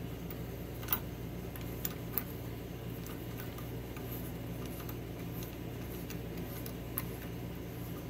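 A thread tap being turned by hand in a T-handle tap wrench to cut threads in a hole in a steel block: a few sharp clicks, about one second in, twice near two seconds and once near seven seconds, over a steady low hum.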